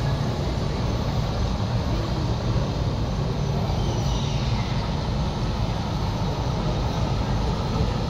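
Steady rushing water sound, heavy in the low end, from the speakers of a digital waterfall display in a large hall.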